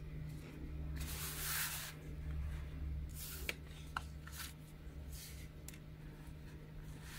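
Hands handling packaging on a cutting mat: rustling and sliding of a microSD card's plastic retail package and a cloth drawstring pouch, loudest about a second in, with a few light clicks and shorter rustles after, over a steady low hum.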